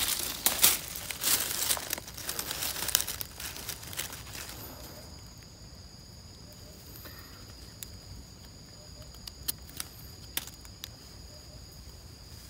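Dry leaf litter and brush rustling and crackling for about four seconds as someone works through the undergrowth, then a few sharp ticks over a steady high insect drone.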